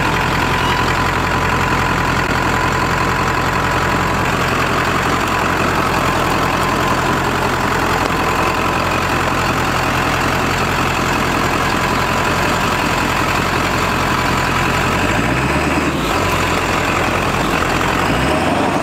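A 1997 Ford F-350's 7.3-litre PowerStroke turbo-diesel V8 running steadily at low revs, heard through the open driver's window. The engine note shifts briefly about three-quarters of the way through.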